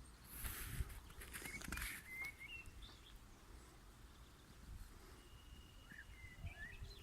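Faint evening songbird chorus: short chirps and whistled notes, with one held whistle near the end. A brief rustling noise in the first couple of seconds is the loudest sound.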